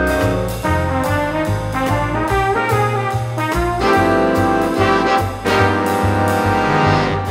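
Background music: a swing-style jazz tune with brass, a moving bass line and a steady beat.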